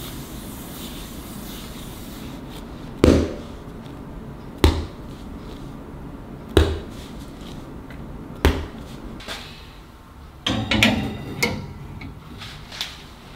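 Soft rubbing of dough being rounded by hand on a marble board, then four sharp knocks about two seconds apart as dough balls are set down one by one on a metal baking tray. Near the end, a metallic clatter as the tray slides onto an oven's wire rack.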